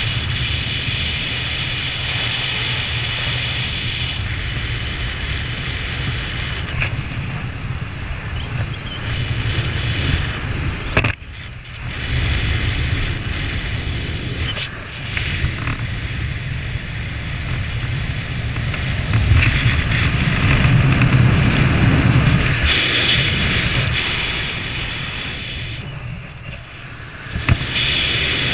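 Wind rushing and buffeting over the camera microphone during flight under an open parachute canopy: a steady roar with two brief lulls and a louder stretch past the middle.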